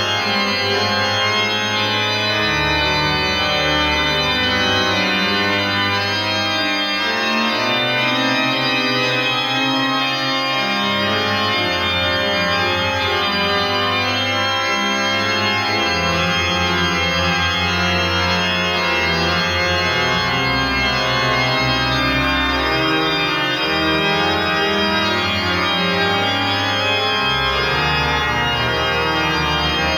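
Organ music: slow, sustained chords over low bass notes that change every second or two.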